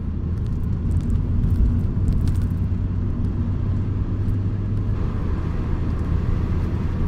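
Steady car cabin noise while driving: a low engine and road hum with tyre noise underneath.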